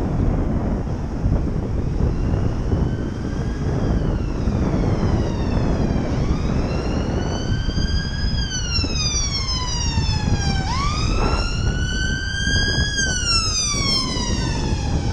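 Emergency vehicle siren wailing in slow rising and falling sweeps, faint at first and growing louder, with a sudden jump in pitch near two-thirds of the way through. Steady wind rumble on a helmet-mounted microphone underneath.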